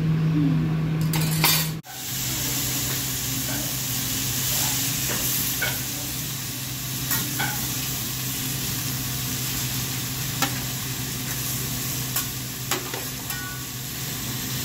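Steak and noodles sizzling on a steel hibachi teppanyaki griddle, a steady hiss, with the chef's metal spatula now and then clicking and tapping on the plate. A steady low hum fills the first two seconds, then cuts off abruptly.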